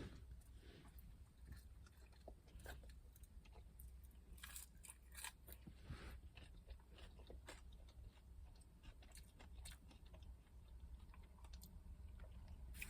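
Faint chewing of food: soft, irregular mouth clicks and small crunches.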